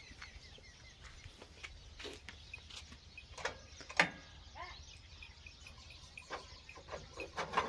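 Faint outdoor background with a low steady hum, a few bird chirps and scattered clicks and knocks, the loudest knock about four seconds in.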